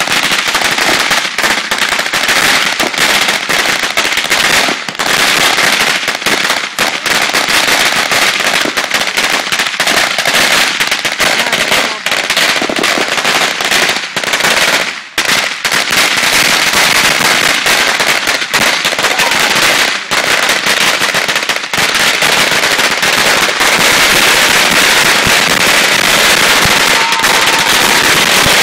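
Ground fireworks going off in a rapid, continuous crackle of many small sharp bangs, loud and dense, with a couple of brief lulls and a steadier stretch near the end.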